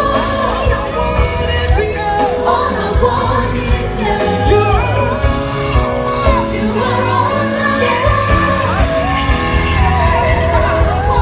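Live gospel band music with drums and bass keeping a steady beat, while voices sing gliding wordless lines with occasional yells and whoops.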